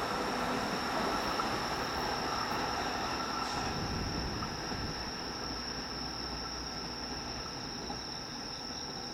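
E231 series 1000 commuter train receding after passing, its running noise on the rails fading slowly. A steady high chirring of crickets runs underneath.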